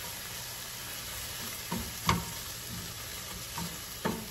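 Sliced beef, onions and mushrooms sizzling in a frying pan, stirred with a silicone spatula that scrapes and knocks against the pan a few times, most sharply about two seconds in.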